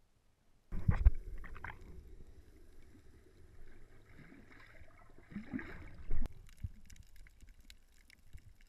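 Muffled underwater sound of a camera held below the surface: water sloshing and gurgling against the housing, with a loud thump about a second in and another near six seconds. After that comes a fainter fine crackling of many small clicks.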